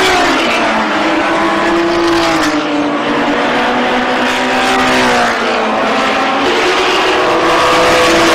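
Several racing touring car engines running hard as a pack passes, their overlapping notes rising and falling with the revs and gear changes.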